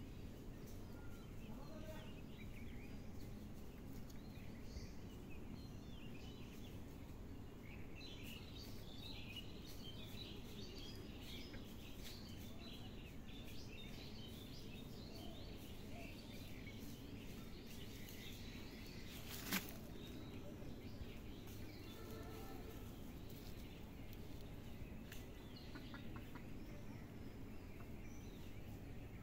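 Steady outdoor background noise with faint, scattered bird chirps through the middle, and one sharp click a little past halfway.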